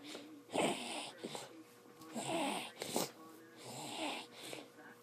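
Heavy, noisy breathing of a girl with polymicrogyria during a seizure: three laboured breaths, about one every one and a half to two seconds.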